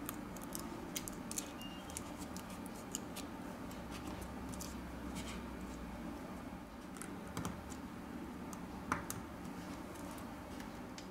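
Small irregular clicks and scratches of hands handling a smartphone's opened internals and shielding tape, with one sharper click about nine seconds in, over a low steady hum.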